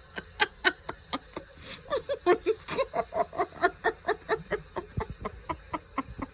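A person laughing hard and uncontrollably in a fast run of short pitched "ha" bursts, about five a second, that keeps going throughout.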